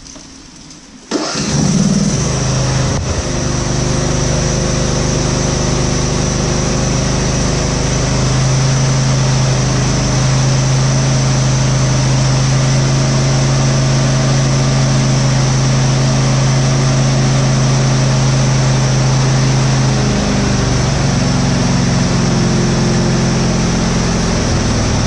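A 24 hp Briggs & Stratton engine on a lawn tractor catches about a second in and runs at a steady speed, settling slightly lower about twenty seconds in. It runs smoothly with no surging, now that the carburettor's jet O-rings have been replaced.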